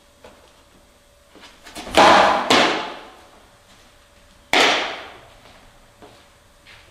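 Softball smacking into a catcher's mitt with a loud pop about two seconds in, a second pop half a second later, then a third about two seconds after that as the thrown-back ball is caught in the pitcher's glove. Each pop rings briefly off the walls of a small indoor room.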